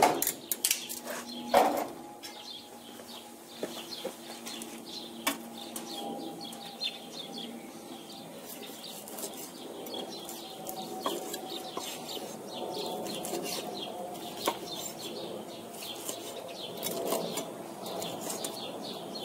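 A chef's knife slicing through grilled pork on a wooden end-grain cutting board, with repeated taps and knocks of the blade on the wood. The two loudest knocks come at the very start and about a second and a half in.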